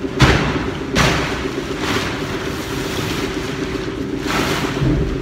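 Heavy black plastic silo cover sheeting crinkling and rustling as it is gathered and dragged across the floor, in irregular surges, inside the concrete silo. A steady machine hum runs underneath.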